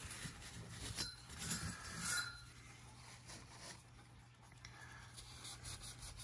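Paper towel rubbing and scuffing over the inside of a Pioneer SA-7800 amplifier and its finned heat sink as it is wiped clean. The scuffs are loudest in the first two seconds, then quieter and more scattered.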